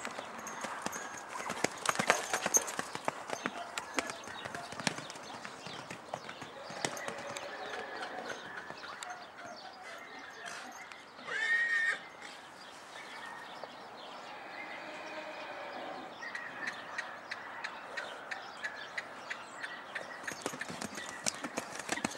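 Hoofbeats of a young grey Andalusian (PRE) stallion moving loose on dirt, an irregular run of soft thuds and clicks. Just after halfway through the stallion gives one loud, brief whinny.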